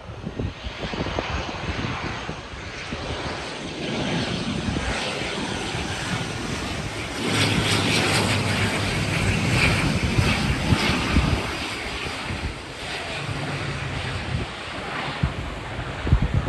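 LIAT ATR twin-turboprop airliner on low final approach, its propellers and engines droning. The sound grows loudest as it passes low overhead, about halfway through, then eases off.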